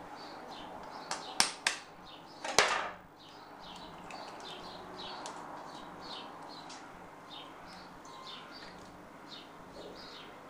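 A raw egg knocked against the rim of a glass bowl to crack it: two sharp taps a little over a second in, then a louder crack about two and a half seconds in. Small birds chirp throughout, in quick short falling notes.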